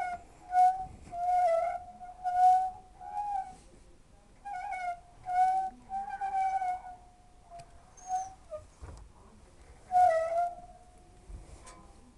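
Hoover W 420 washing machine's broken drum bearings squealing: a high, wavering whistle that comes and goes in irregular bursts, with a few faint knocks.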